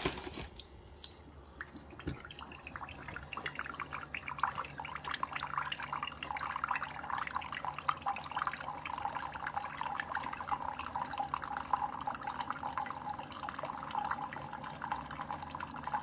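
Two Keurig single-serve coffee makers brewing at once: thin streams of coffee trickle and splash into glass mugs over a low steady hum from the brewers. The splashing builds up about two seconds in.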